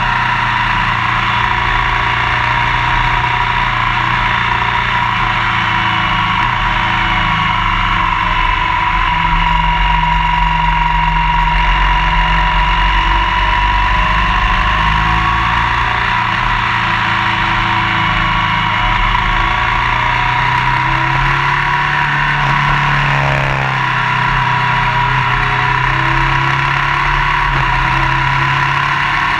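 Motorcycle engine running steadily while riding at road speed, with wind and road noise, heard from a camera mounted low on the front fork. The engine pitch dips and rises again briefly about three-quarters of the way through.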